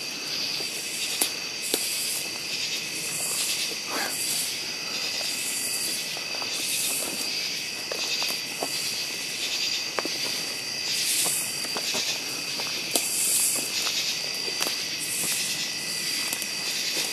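Night insect chorus: a steady high trilling with a higher buzz that swells every second or two. Over it, scattered footsteps and twig snaps on the forest floor.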